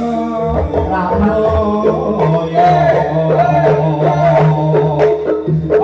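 Live dangdut band music: a wavering melodic line over a held bass note, with regular hand-drum beats.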